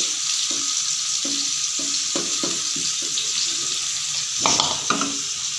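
Fish pieces shallow-frying on a chapati tawa: a steady sizzle throughout, with brief louder moments about four and a half seconds in.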